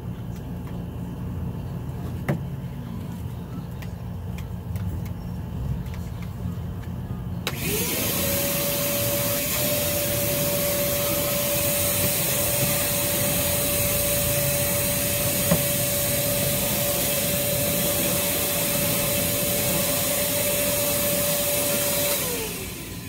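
Vacuum cleaner switched on about seven seconds in: its motor spins up to a steady whine over a loud rush of suction, runs for about fifteen seconds, then is switched off and winds down near the end. Before it starts, a low background rumble.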